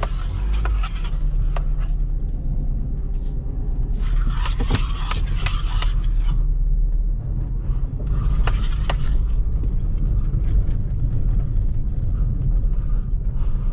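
A 2015 Jeep Patriot's four-cylinder engine and tyres heard from inside the cabin as it drives slowly, a steady low rumble. It is running and pulling again after a throttle body replacement cured its limp mode. Bursts of rougher noise come in about four seconds in and again about eight seconds in.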